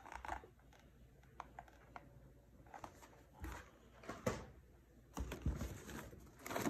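Packaged snack boxes being handled and shifted inside a cardboard shipping box: scattered light taps, clicks and rustles of cardboard, busiest and loudest in the last couple of seconds.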